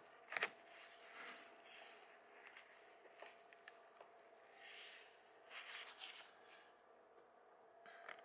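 A paper tissue rubbing and wiping across a smartphone's glass screen: faint, soft rustling swishes, a few strokes close together about five and a half to six and a half seconds in.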